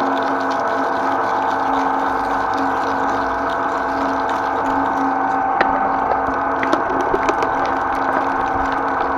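Twin-shaft shredder running steadily with a motor whine, its cutter discs chewing through vegetable stalks. Sharp cracks and snaps come between about five and a half and seven and a half seconds in as pieces are crushed.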